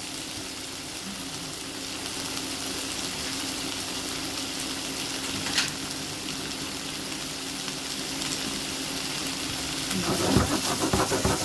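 Onions, garlic and red pepper strips sizzling in olive oil in a non-stick frying pan: a steady hiss. Near the end a utensil stirs the vegetables, with quick scraping knocks against the pan.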